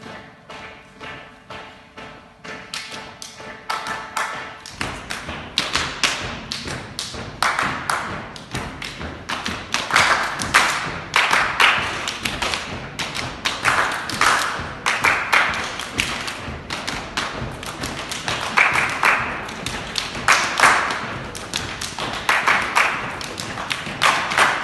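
Body percussion by an ensemble: many hands clapping and slapping in a fast, tight rhythm. It is soft at first and grows much louder about five seconds in, with strong accented claps every second or two.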